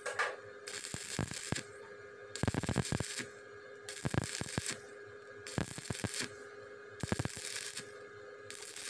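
Stick-welding arc crackling in short bursts of under a second, struck and broken about six times, roughly every second and a half. This is the stop-start stitch technique for thin-walled square tube, which lets the metal cool between bursts so it doesn't burn through. A faint steady hum runs underneath.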